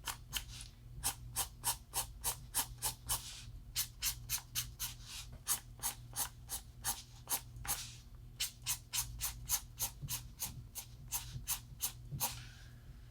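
Felt-nib alcohol marker flicking quick short strokes on paper, about four or five a second, with a few brief pauses, over a steady low hum.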